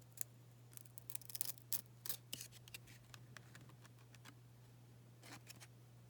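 Glossy trading cards from an old pack being handled and pulled apart where they stick to each other: a run of short, crisp crackles and scrapes in the first three seconds and a few more near the end, over a steady low hum.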